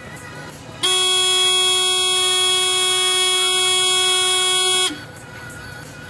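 Consilium fire detection panel's buzzer sounding one loud, steady tone for about four seconds, starting about a second in and cutting off suddenly. It comes as the panel's main power supply is disconnected, a power-supply fault warning.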